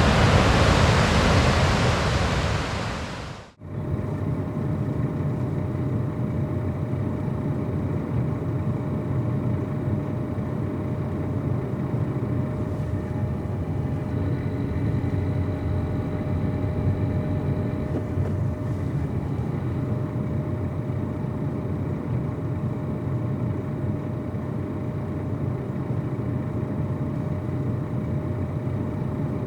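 Goðafoss waterfall rushing for about three seconds, fading quickly to nothing. Then the steady road noise of a car driving, a low, even rumble with a faint constant hum.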